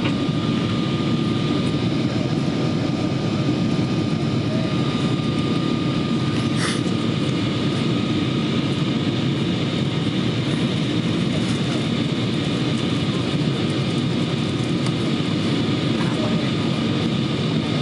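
Steady cabin noise of a Boeing 777-200 on its approach to land: an even rush of airflow and engine noise with a thin, constant whine running through it. A brief click sounds about seven seconds in.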